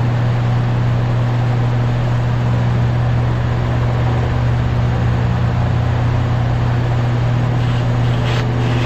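Steady low mechanical hum with a constant background rush, and one short click near the end.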